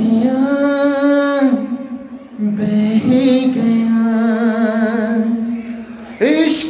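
A man singing unaccompanied into a handheld microphone: long held notes, one with a wavering vibrato about halfway through, a short break about two seconds in, and a new phrase starting near the end.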